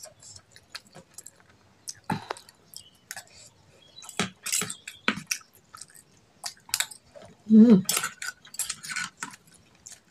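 Metal spoon and fork clinking and scraping on a plate, with chewing of fried instant noodles and rice between the clicks. A short, loud voice sound with a wavering pitch comes about three-quarters of the way in.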